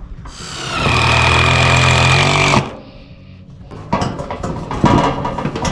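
Cordless power screwdriver driving a self-tapping screw through metal roof tile to hold down a sheet that was lifting. The motor winds up, runs steadily for about two seconds and stops suddenly. Lighter clatter and knocks follow near the end.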